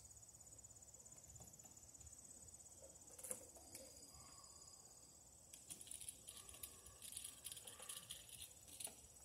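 Near silence: a faint, steady high trill of insects. A few light clicks and scrapes from hand tools working the outlet's wiring come about three seconds in and again through the second half.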